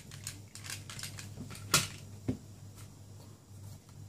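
Small knocks and clicks of objects being handled and set down on a table, a series of short sharp sounds with the loudest knock just under two seconds in and another about half a second later, over a faint steady low hum.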